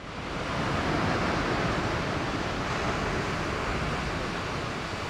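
Steady wash of ocean surf, with wind buffeting the microphone.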